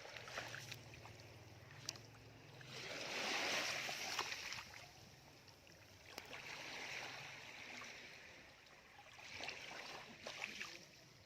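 Shallow surf washing up over wet sand and draining back in three slow swells, with a few faint clicks between them.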